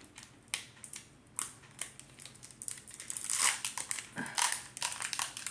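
Foil wrapper of a Pokémon card booster pack crinkling and crackling as it is opened by hand, in scattered crackles with a louder burst about three and a half seconds in.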